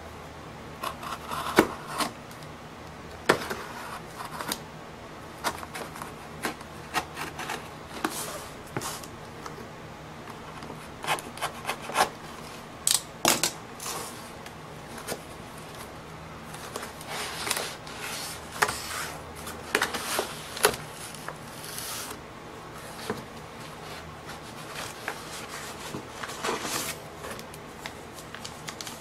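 Cardboard mailing box being opened by hand and cardboard mailers pulled out and set down: irregular scrapes, rustles and taps of cardboard and paper, some sharper than others.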